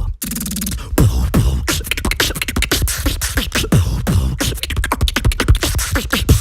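Human beatboxing: a fast, dense run of mouth clicks and pops, with a deep kick-drum-like bass thump falling in pitch about once a second.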